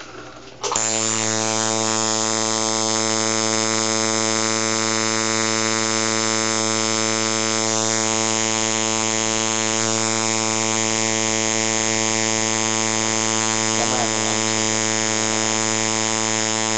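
Electric tattoo machine running, a loud steady buzz that switches on abruptly about a second in and holds at an even pitch.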